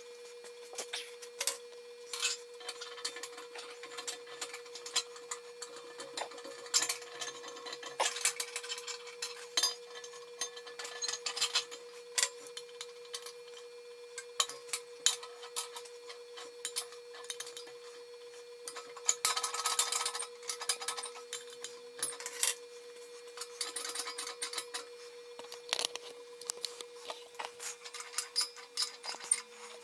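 Steel forge parts clinking, knocking and scraping as they are handled and fitted, with longer scraping passes a quarter and two thirds of the way in. A steady faint hum runs underneath.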